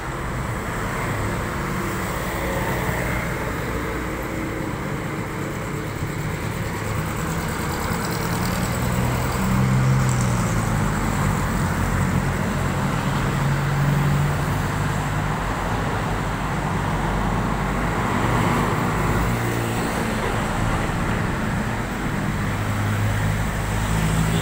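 Road traffic: vehicle engines running and cars passing, with a low engine hum that grows louder around the middle and again near the end.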